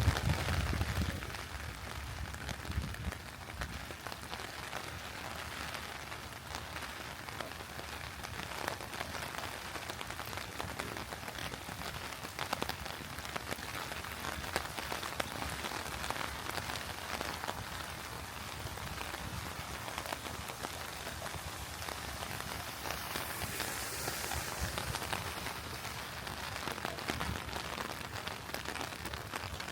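Steady rain falling, many separate drops pattering on surfaces. A low rumble fades out in the first couple of seconds.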